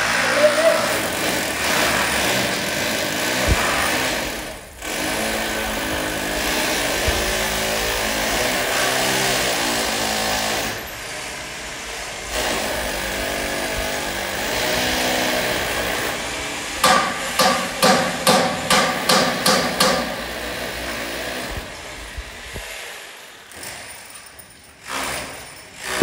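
Stick welder arc crackling and hissing in long runs with brief breaks while joining a steel roof frame. Near the end comes a quick series of about ten sharp metal taps, about three a second.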